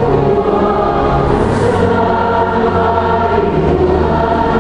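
Choir singing a hymn in long held notes, several voices in harmony.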